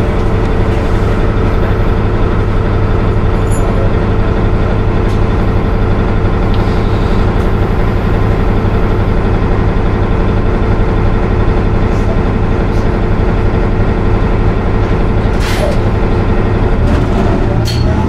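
Cummins ISL-G straight-six natural-gas engine and drivetrain of a 2018 Nova Bus LFS, heard inside the passenger cabin near the rear, running steadily as the bus rides along. A couple of brief clicks or rattles come near the end.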